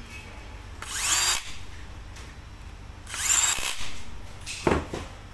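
Cordless drill-driver tightening screws back into a PCP air rifle: two short runs of the motor, each whining up in pitch, about two seconds apart. A short knock near the end.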